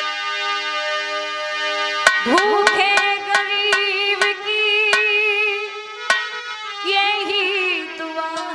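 A harmonium plays a steady melody. About two seconds in, a woman's voice comes in, sliding up into a long, wavering held note, with a second sung phrase near the end. Sharp hand-drum strokes sound throughout, at the opening of a Hindi song.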